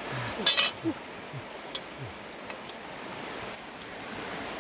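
Steady rush of a fast, shallow river running over rocks. About half a second in comes a sharp brief crackle, and a few short low falling murmurs sound in the first two seconds.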